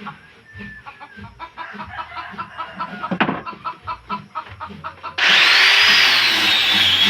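Chickens clucking over a rapid, regular ticking, with one short louder call about three seconds in. About five seconds in, music starts abruptly and is much louder.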